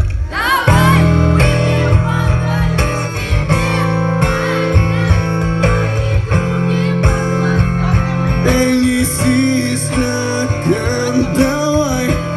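Loud live band music over a concert sound system, heard from within the crowd. A guitar carries a melodic passage over a heavy, steady bass line.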